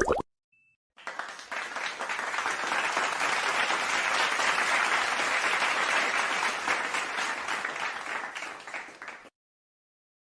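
Applause from many people clapping, starting about a second in, building up, then fading away and stopping about a second before the end.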